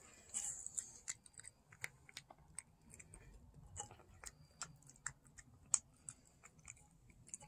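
Tuxedo cat chewing and smacking wet fish food from a metal bowl: faint, irregular little clicks and wet smacks, several a second.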